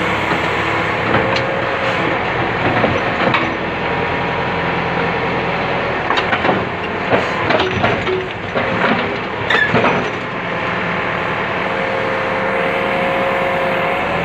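Heavy diesel machinery running steadily, its engine note rising and falling, with a series of sharp metal clanks and knocks in the middle.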